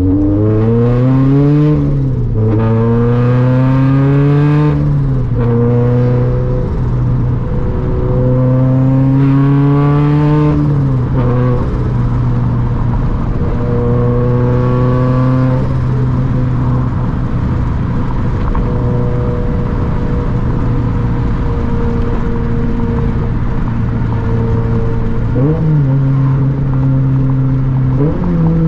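Turbocharged 2013 Scion FR-S's 2.0-litre flat-four engine through a custom titanium center-exit exhaust, heard from inside the cabin as the car pulls up through the gears: the revs climb and drop at upshifts about two, five and eleven seconds in. It then cruises at steady, slowly falling revs, with two short rev blips near the end.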